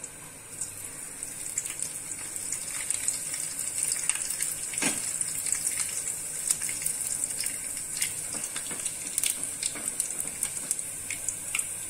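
Cumin seeds sizzling in hot oil in a kadhai: a steady high hiss with scattered crackles and pops, growing louder over the first few seconds as the seeds heat.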